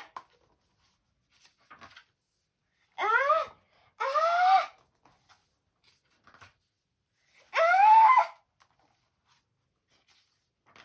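A child's voice making three short, drawn-out non-word vocal sounds, each rising in pitch. The third, near the end, is the loudest and breathiest.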